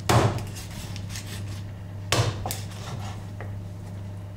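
Heavy chops of a large kitchen knife through a rabbit carcass onto a cutting board, while the rabbit is being jointed: one near the start and another about two seconds later, followed by a lighter knock. A steady low hum runs underneath.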